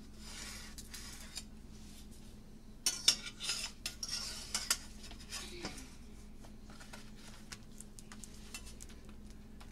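Slotted metal spatula scraping and clinking against a stainless steel skillet as a folded quesadilla is turned over, with the clicks and scrapes clustered about three to five seconds in and a few faint ticks after.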